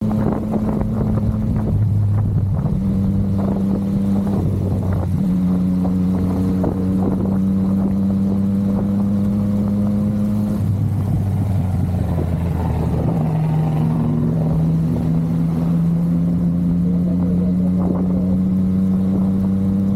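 Yamaha MT-09's three-cylinder engine running while riding, its note holding steady for a few seconds at a time and then shifting to a new pitch several times.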